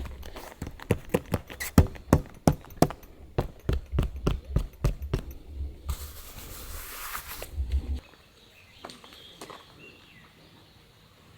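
A quick run of sharp clicks and knocks, about four or five a second, from camp gear being handled and set out. A short hiss follows about six seconds in.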